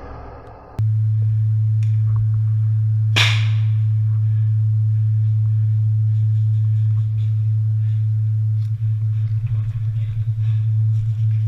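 Airsoft bomb prop's buzzer sounding one steady low tone, an alarm marking the end of the bomb round. A single sharp crack sounds about three seconds in.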